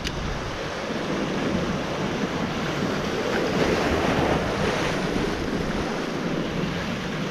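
Sea surf washing and breaking over shoreline rocks, with wind buffeting the microphone; the wash swells a little in the middle.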